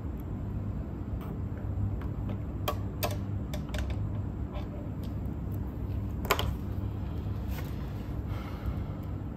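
A few scattered small clicks and taps of tools, screws and metal parts as a cassette deck is worked on, the sharpest a little past halfway, over a steady low hum.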